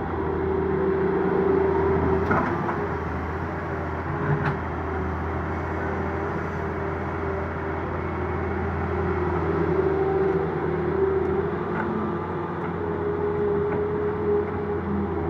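Steady drone of heavy diesel engines from a Doosan wheeled excavator loading soil and a tractor running beside it, with a couple of short knocks about two and four and a half seconds in.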